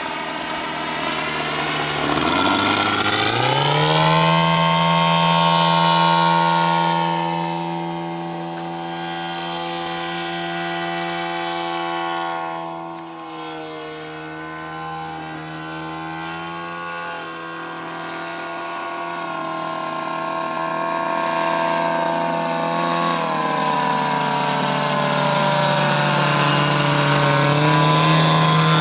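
Engine and propeller of a 4-metre radio-controlled An-2 biplane model in flight, one steady engine note that rises in pitch about two seconds in, holds, dips in loudness midway, then falls and rises again near the end.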